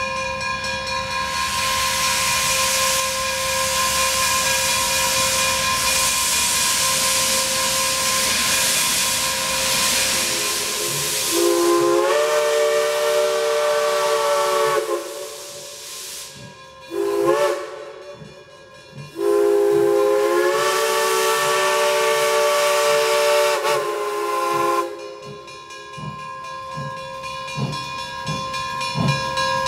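Wilmington & Western No. 98, a 4-4-0 steam locomotive, hissing steam, then sounding its chime steam whistle for the grade crossing: a long blast, a short one and another long blast, each sliding up slightly in pitch as it opens. Near the end slow exhaust chuffs begin as it moves off, with a steady ringing from the crossing signals underneath.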